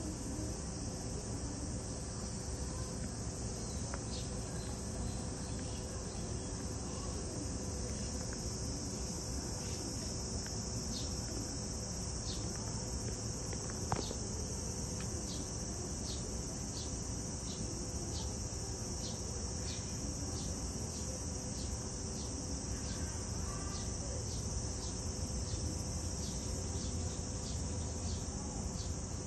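Summer cicada chorus: a steady high-pitched shrilling, joined from about ten seconds in by a regular ticking call about twice a second. One sharp click about halfway through.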